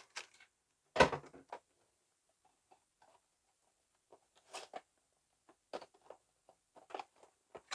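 Aluminium foil food trays being handled on a wooden worktop: scattered soft crinkles and taps, with one sharper knock about a second in.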